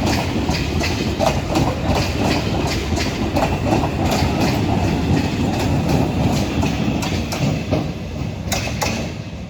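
EMU (electric multiple unit) local train running, its wheels clicking over rail joints over a steady low rumble that eases off slightly near the end.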